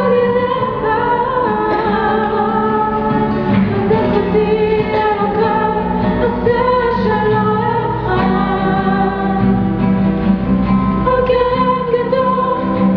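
A girl singing a slow Hebrew song in a clear solo voice, accompanied by a nylon-string classical guitar.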